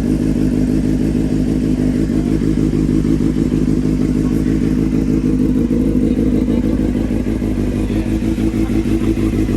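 Suzuki GSX-R750's inline-four engine idling steadily, just started back up after repair work.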